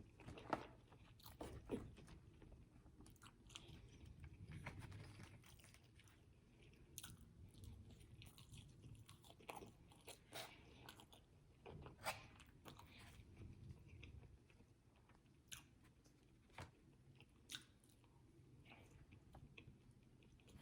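Faint chewing and biting of fried food, with scattered short crunches and mouth clicks.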